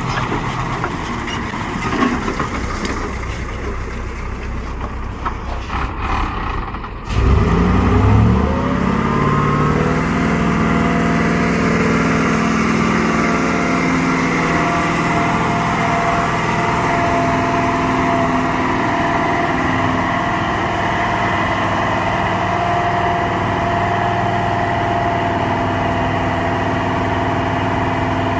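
Heavy truck diesel engine: a quieter vehicle sound first, then about seven seconds in a louder engine cuts in, its pitch rising as it revs up and then holding steady as it runs under load.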